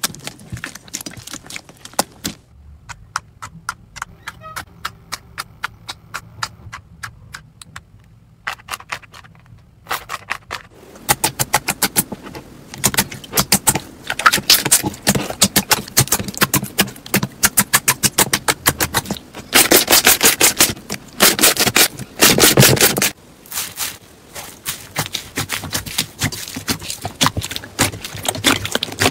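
Hands squeezing and poking slime, giving wet clicking and popping from air pockets. The pops are sparse at first, then grow dense and louder, running together into nearly continuous crackling for a few seconds.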